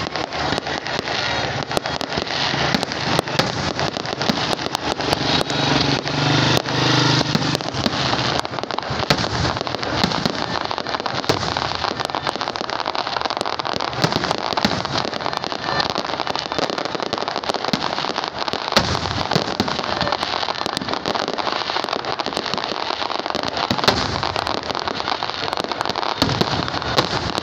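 Fireworks display: a continuous barrage of aerial shell bursts, many sharp bangs overlapping with no pause.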